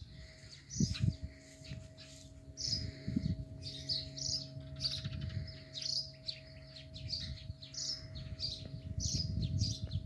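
Small birds chirping: short high chirps repeating about twice a second, over occasional low rumbles.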